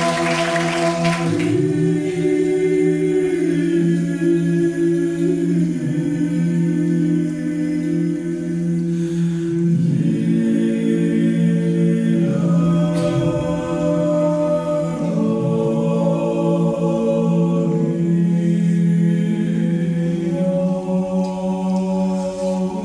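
Unaccompanied Georgian-style polyphonic choir singing: a bass drone holds one low note while the upper voices move above it in close harmony. Applause dies away in the first second or so.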